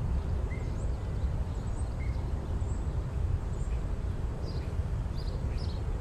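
Outdoor park ambience: a steady low rumble with small birds chirping faintly over it. The chirps come more often near the end.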